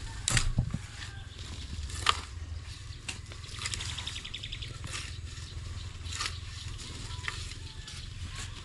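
Shovels striking and scraping into packed soil in irregular strokes, roughly one a second, the loudest just after the start, over a steady low rumble.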